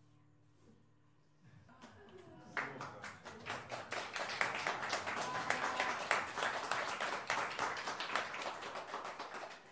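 A held low note dies away, and about two seconds in a group of listeners breaks into applause, clapping quickly and unevenly.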